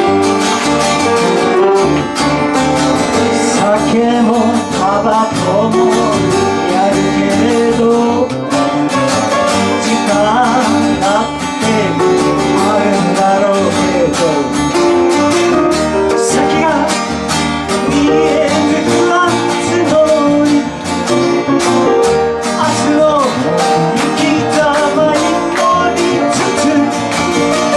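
Music led by guitar, playing continuously.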